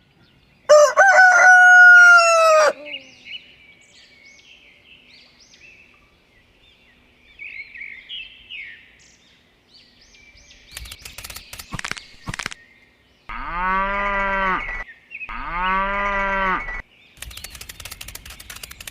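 A rooster crowing once, loud, near the start, followed by faint bird chirping. Later come a few clicks, then two long, lower animal calls, each about a second and a half.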